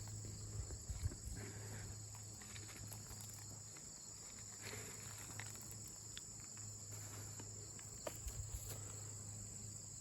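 Evening insect chorus, a steady high-pitched trill of crickets, over a low steady hum, with a few faint soft knocks and rustles about a second in and again near the end.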